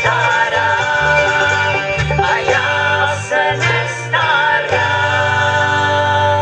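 A live country-bluegrass band, with banjo and guitars over a bass line and voices singing, ends on a long held chord that starts about two-thirds of the way in.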